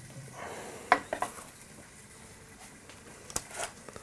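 A metal spoon clinking against a ceramic serving dish and a baking tray as roasted vegetables are lifted across. There is a little cluster of light clicks about a second in and two more near the end.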